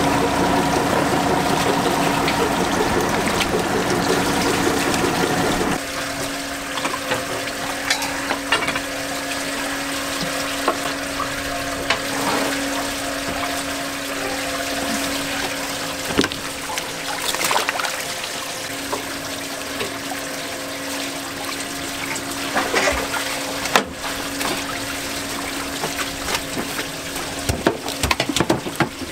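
Seawater pouring and splashing into a fishing boat's live-fish well, over a steady motor hum; the sound drops a little in level about six seconds in. Scattered short splashes and knocks as a dip net scoops fish from the water.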